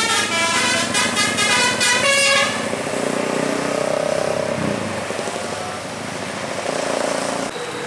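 Bus telolet horn, a Basuri multi-tone air horn, playing a quick melody of changing notes for about two and a half seconds, then steady engine and road noise as the bus passes.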